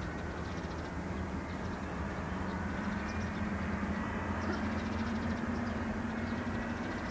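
Distant four-engined Airbus A340-300, its CFM56 turbofans rumbling steadily as the airliner rolls out along the runway after touchdown, with a low hum that rises slightly in pitch.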